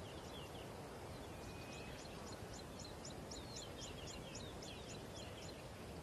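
Faint dry-savanna ambience: a small bird calling in a rapid series of short high chirps, about three or four a second, over a steady hiss, stopping shortly before the end.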